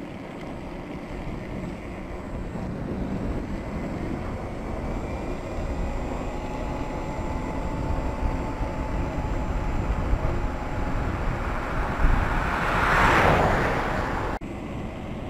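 Wind and road rumble on the camera's microphone while riding a Ninebot One electric unicycle along a paved road, slowly building in level. A faint steady tone comes through midway, and a louder rushing swell builds about twelve seconds in and fades before the end.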